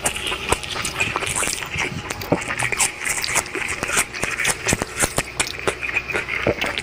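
Close-up eating of crisp green mango slices: bites and chewing heard as many small irregular crunches and wet mouth clicks.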